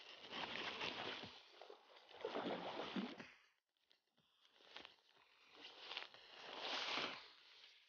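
Water splashing and sloshing at the surface as a hooked black bass is played beside the boat, in three short swells.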